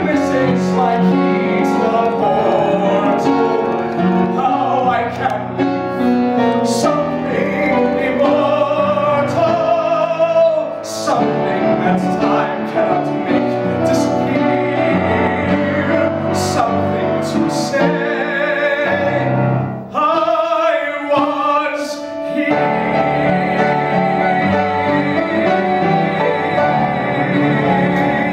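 A male singer performing a musical-theatre song with piano accompaniment, singing the closing passage and holding a long final note over the piano for the last several seconds.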